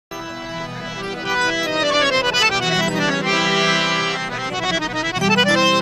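Harmonium playing a melodic introduction: quick runs of notes stepping down and then back up over sustained low notes.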